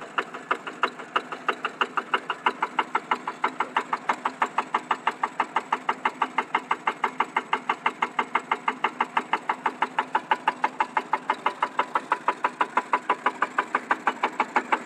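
Yanmar TF150-type horizontal single-cylinder diesel engine running steadily while belt-driving a water pump, its exhaust beating evenly about six times a second.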